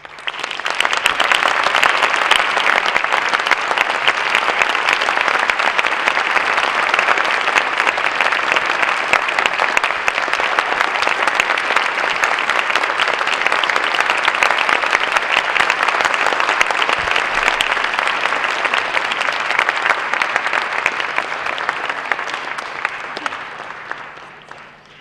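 Audience applauding: a dense, steady clapping that swells up within the first second and dies away over the last few seconds.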